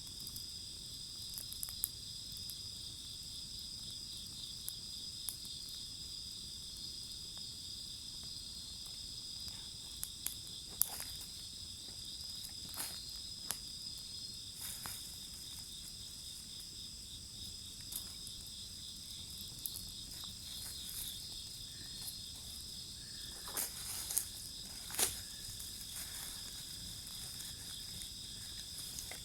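Insects chirping steadily in several high-pitched tones, with scattered sharp pops and crackles from burning firewood, a few louder cracks near the end.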